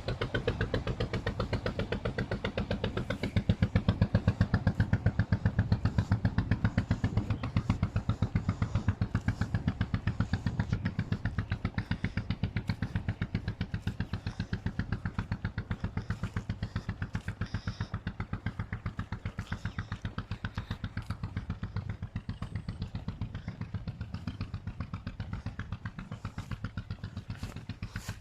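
An engine running steadily with a fast, even beat of pulses. It grows a little louder about three and a half seconds in, then slowly fades.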